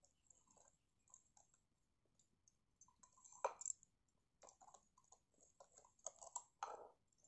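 Faint, scattered clicks and taps of a metal wire whisk against a glass bowl as wheat-flour pancake batter is stirred, with a sharper knock about three and a half seconds in and a run of clicks near the end.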